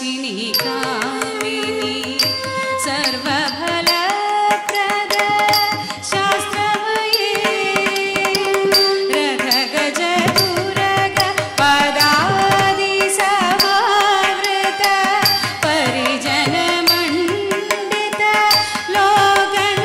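Carnatic music: a melody sung with sliding, wavering ornaments over a steady stream of crisp percussion strokes.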